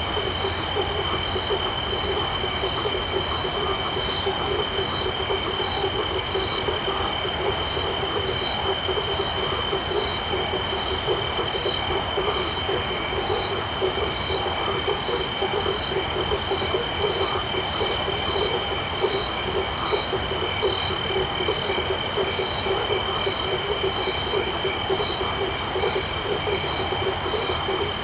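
Night chorus of crickets and frogs. A steady high insect trilling carries a pulsed call repeating about once a second, over a low, busy frog chorus.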